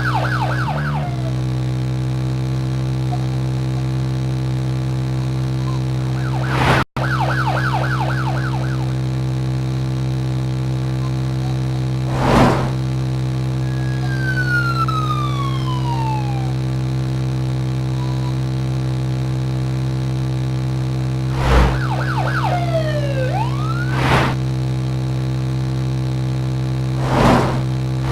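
Siren-like wailing: quick warbling sweeps and long falling glides over a steady low drone, with a sharp hit every few seconds.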